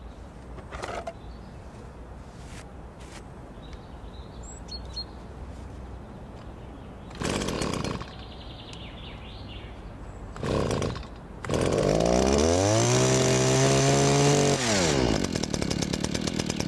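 Stihl HS81R hedge trimmer's two-stroke engine pull-started: two short pulls on the starter cord about 7 and 10 seconds in, then the engine catches, revs up high for a few seconds and drops back to idle.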